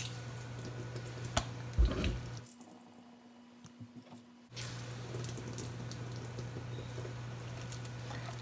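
Boiled komatsuna being squeezed by hand over a bowl: faint wet squishes and drips over a steady low hum, with a couple of soft knocks in the first two seconds. The sound drops almost to silence for about two seconds in the middle.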